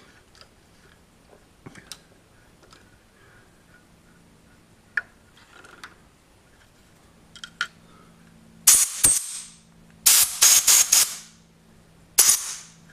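Short hissing blasts from a compressed-air blow gun clearing cast iron chips out of a freshly tapped hole. There is one blast, then a quick run of several, then one more near the end, with a few light clicks of handling before them.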